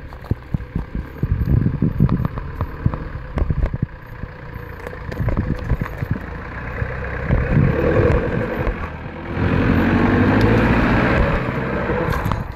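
Engine of an old Nissan Pathfinder 4x4 working at low speed as it crawls over deep ruts on a dirt track, with scattered knocks and clicks. From about seven seconds in it revs harder, and it is loudest for the last few seconds as it pulls up close.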